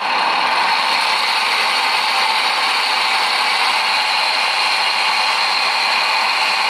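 Small electric kitchen blender motor starting suddenly and running steadily at one speed, grinding mint leaves with onion, green chilli and water into chutney.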